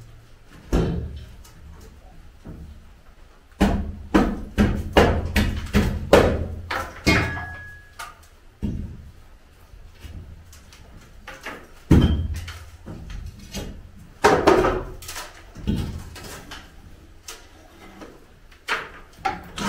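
Timber formwork being stripped from a concrete slab: a long pry bar knocking and levering the wooden shuttering loose, giving repeated sharp knocks and clattering of boards in clusters with short quiet gaps.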